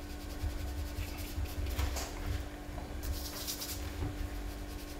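Faint soft strokes of a round watercolour brush dabbing and dragging across textured watercolour paper, with a few brief swishes, over a steady low hum.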